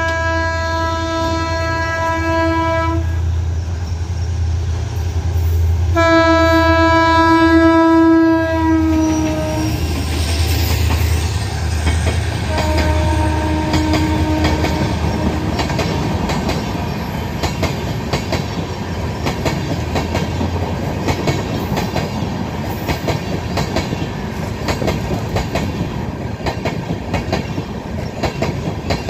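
Indian Railways express train passing at speed. The locomotive's multi-note horn sounds two long blasts, and the pitch drops as the engine goes by. A shorter, lower blast follows, then the coaches rattle past with rapid clicking of wheels over rail joints.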